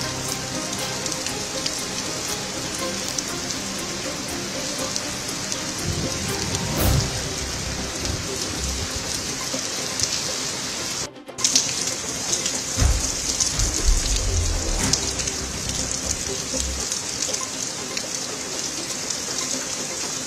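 Heavy cyclone rain pouring steadily onto a wet road. The sound drops out briefly about halfway, then the rain returns with irregular low rumbling bursts under it.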